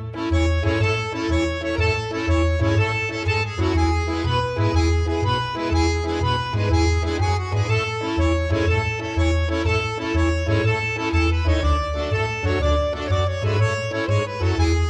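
Instrumental background music with a steady bass beat under sustained melody notes.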